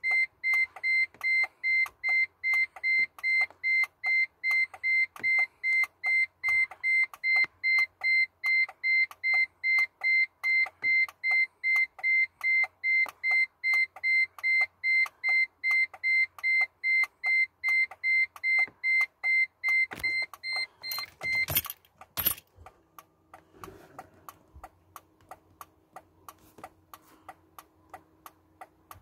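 Car warning chime beeping rapidly, nearly three short high beeps a second, with faint ticking under it while the ignition is on and the engine ECU is being read through the diagnostic port. About 21 seconds in the beeping stops with two sharp clacks, and fainter ticking and a low hum carry on.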